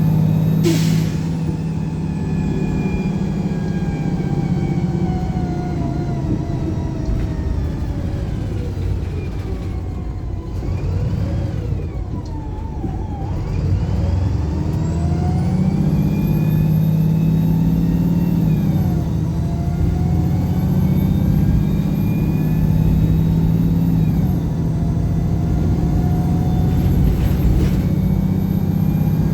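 Single-deck Pulsar bus's diesel engine heard from inside the saloon, slowing down and then pulling away and accelerating hard. The engine pitch climbs and drops back twice, at automatic gear changes about two-thirds of the way in and again a few seconds later, then climbs again.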